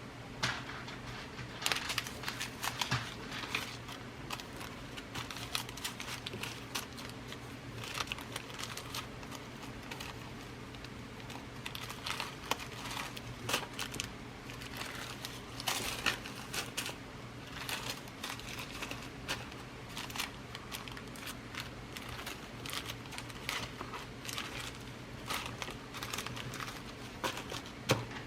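Glass seed beads being rummaged through by hand: irregular rustling and crinkling with many small, quick clicks.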